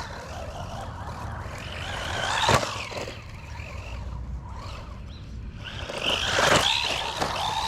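DEERC 9000E electric RC monster truck driving, its motor and gears whining in surges as it speeds up and slows. The loudest surge comes about two and a half seconds in, with a sharp knock, and another builds around six to seven seconds in, over a steady rush of tyre and drivetrain noise.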